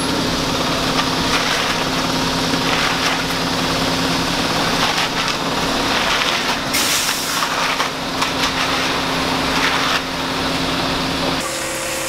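A concrete mixer truck's engine runs steadily while come-along rakes scrape and push wet concrete during the pour.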